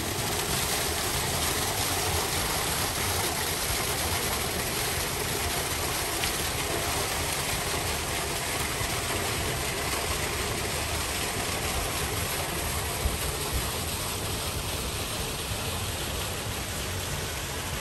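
Small artificial garden waterfall, water falling over rockwork into a pool with a steady, even rushing.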